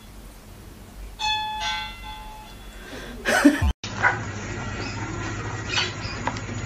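A bell-like chime rings with a clear tone and overtones, followed by a short swish. After a sudden cut, small parrots chirp and tap about on a tabletop over a low hum.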